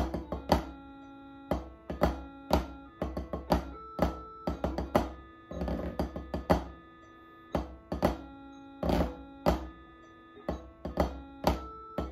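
Wooden drumsticks striking a practice pad set on a snare drum, playing a drumming pattern of loud accented strokes among softer taps, with a short roll about six seconds in.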